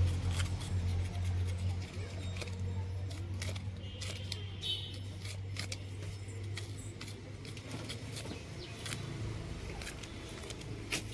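Irregular clicks and scraping from singed goat trotters being cleaned by hand, over a steady low hum.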